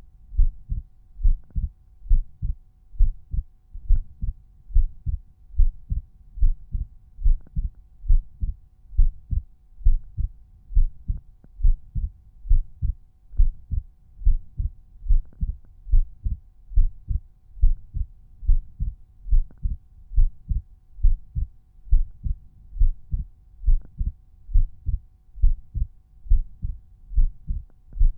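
Resting human heartbeat auscultated at Erb's point: regular lub-dub heart sounds, low and dull, repeating a little more than once a second.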